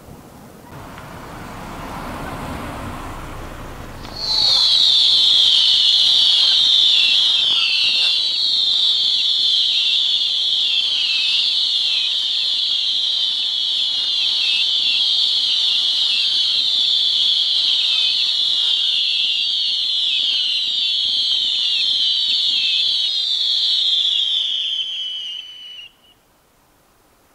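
Whistling fireworks fired from the ground: after a rising rush of noise, a loud, shrill chorus of many overlapping whistles, each falling in pitch, starts suddenly about four seconds in, holds for some twenty seconds and cuts off abruptly near the end.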